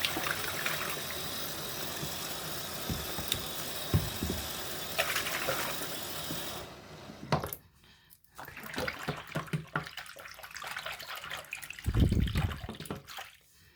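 Water running from a tap into a sink that is filling, shut off about halfway through. Scattered small knocks and handling noises follow.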